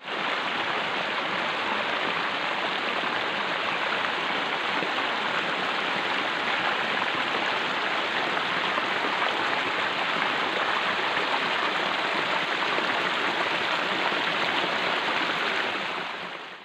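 Steady rushing noise of running water, starting at once and fading out near the end.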